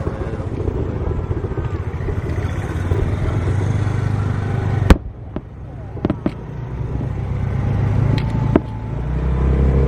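Steady low rumble of vehicle engines with voices in the background, broken about five seconds in by one very loud, sharp firework bang, followed by a few smaller pops.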